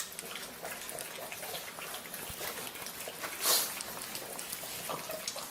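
A dog licking and smacking at food: a run of small wet clicks, with one louder, brief noisy smack about three and a half seconds in.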